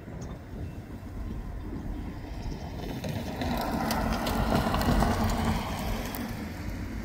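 Escanaba & Lake Superior freight train rolling past, growing louder to a peak about five seconds in and then easing off, with a low steady engine tone and a run of rapid clicks near the loudest part.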